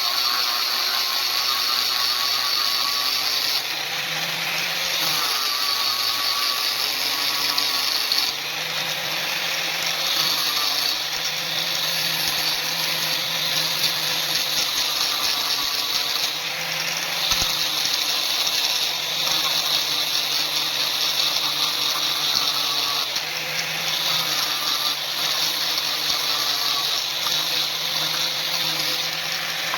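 An electric power tool running continuously under load on steel, its pitch wavering as the pressure on the work changes.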